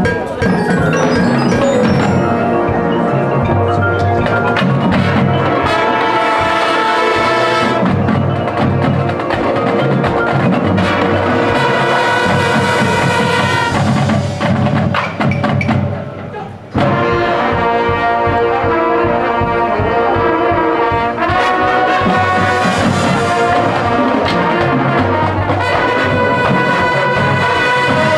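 Marching band playing, with brass chords over drums and mallet percussion from the front ensemble. Just past halfway the sound thins and fades for a couple of seconds, then the full band cuts back in at once.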